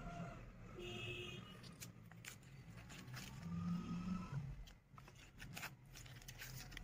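Stiff paper card being folded shut and handled, with scattered soft rustles and taps, over a faint low hum.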